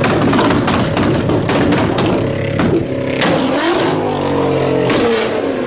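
Nissan GT-R's engine being revved, its pitch rising and falling with the throttle. The exhaust crackles and pops rapidly, densely through the first few seconds and more sparsely near the end.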